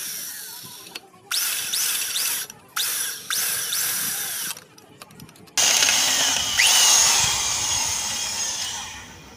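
Handheld electric drill boring with a bit of about 10 mm into the stripped oil drain-bolt hole of a metal engine casing, opening it out before new threads are tapped. It runs in several short bursts that start and stop, then a longer run in the second half that trails off near the end.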